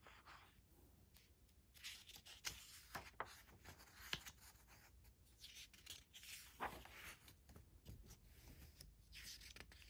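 Faint rustling and soft flaps of a paperback picture book's cover and pages being turned by hand, in two short bouts.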